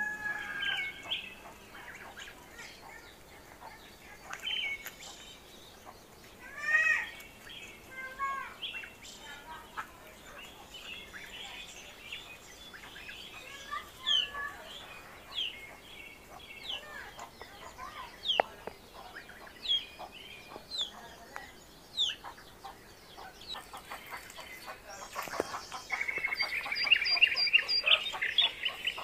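Domestic chicks peeping in short, high, falling notes scattered throughout, thickening into dense, continuous peeping near the end, with a few lower calls from the adult fowl.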